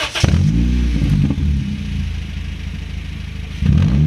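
Honda Civic four-cylinder engine running at the exhaust, blipped up and back down twice, once at the start and again near the end, idling between. The muffler has broken off the flange where it joins the pipe ahead of it, so the exhaust is leaking at that joint.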